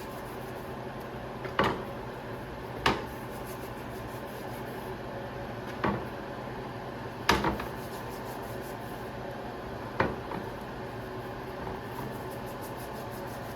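Five sharp knocks of kitchen things being handled or set down, spaced a second or more apart, over a steady low hum.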